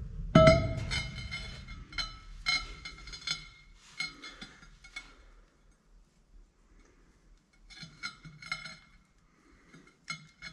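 Metallic clinks and knocks, each with a short ring, from a trailer's brake drum and hub being handled while the outer wheel bearing is worked out of the hub. A loud knock comes about half a second in, then a run of clinks over the next few seconds, and more clinks around eight seconds in.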